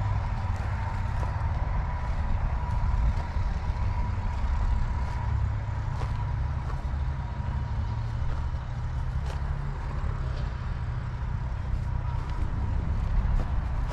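A steady low engine rumble with a faint even whine above it, holding level without revving.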